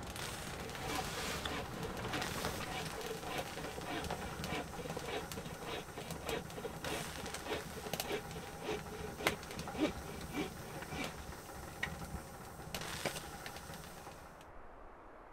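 Firewood crackling and popping in a small wood stove inside a canvas tent, with irregular sharp snaps.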